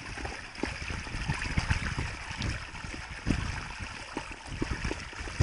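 Water running through a shallow muddy channel, with irregular small splashes as a hand scoops fish out of a water-filled pit.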